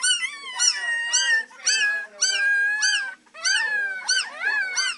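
Three-week-old beagle puppies howling: high, thin, overlapping cries, with quick rising-and-falling yelps about twice a second mixed with a few longer held wails.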